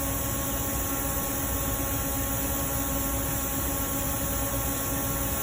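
Steady background hiss with a constant electrical or fan-like hum, unchanging and with no distinct sounds on top.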